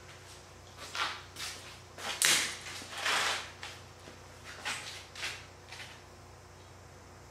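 A pantograph's long steel rod being handled and slid by hand: a run of short scrapes and rubs, the loudest two about two and three seconds in.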